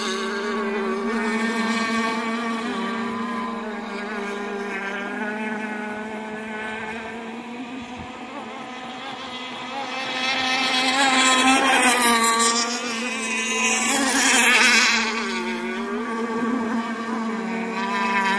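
The small engines of several radio-controlled racing boats running at high revs, their pitches overlapping and wavering as the boats go through the turns. The sound swells twice in the second half.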